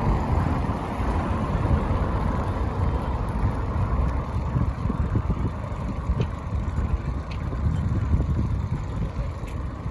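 Wind buffeting the microphone of a moving bicycle, a dense, fluctuating low rumble, over the noise of road traffic passing alongside.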